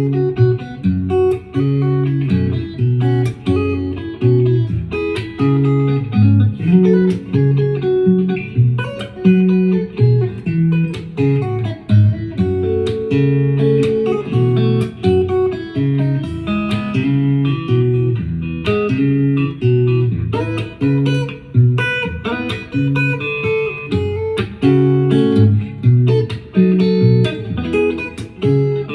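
Guitar playing an instrumental piece, with plucked melody notes over a moving bass line, recorded on a phone's microphone.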